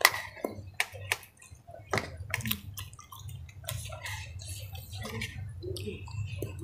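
Close-up wet eating sounds of instant noodles in broth and small meatballs: chewing, smacking and slurping, with many sharp clicks, most of them in the first half.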